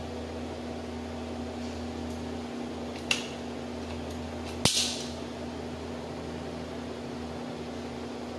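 Two sharp clicks about a second and a half apart, the second louder with a brief ring, typical of a silicone caulking gun's trigger being worked while sealant is laid under a counter basin. A steady low hum sits underneath.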